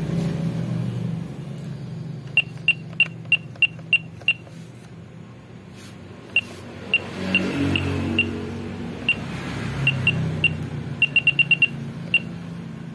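Short, identical high-pitched beeps from an electronic keypad as numbers are keyed in: a quick run of about seven a little after two seconds in, scattered single beeps, then a fast burst of about six near the end. Faint voices murmur underneath.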